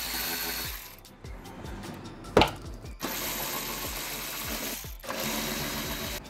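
Handheld power driver whirring in three bursts, backing out the bumper's 8 mm screws, with one sharp click between the first and second bursts. Background music with a steady beat runs underneath.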